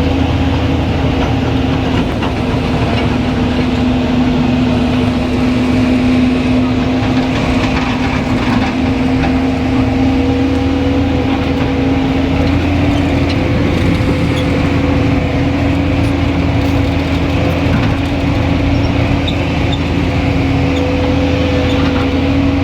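Excavator diesel engine running steadily under a constant load, with a steady hum that wavers only slightly in pitch.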